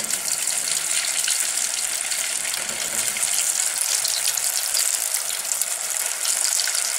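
Hot oil in an aluminium pot sizzling and crackling steadily as spoonfuls of rice-and-cheese batter are dropped in to deep-fry.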